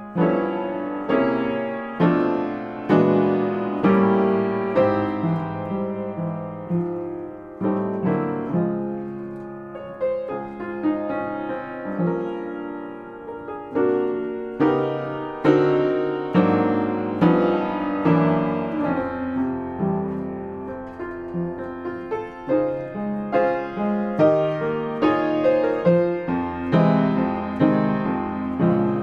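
Solo jazz piano playing a slow ballad: chords and melody notes struck every second or so, each ringing and fading before the next.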